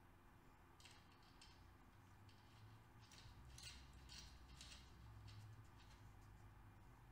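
Near silence, with faint metallic clicks and scrapes as a nut is threaded by hand onto the starter-gear shaft of a Honda CBX 1000 engine, in short bursts about a second in and again from about two to five seconds in.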